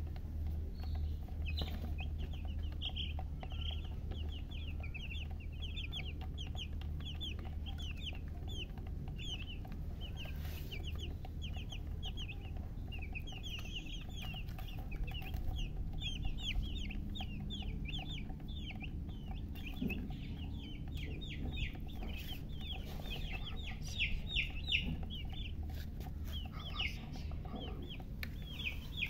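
Domestic chicks peeping: many short, high chirps that fall in pitch, several a second, overlapping and busier in the second half.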